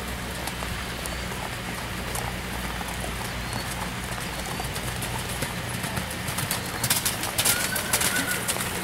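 Hoofbeats of a thoroughbred mare cantering on a sand arena, over a steady background hiss; a cluster of louder, sharper hoof strikes comes about seven to eight seconds in as the horse passes close.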